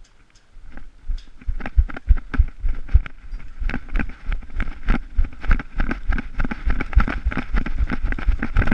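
Thumping footsteps and gear rustle of a player running in airsoft kit, about three heavy steps a second, starting about a second in.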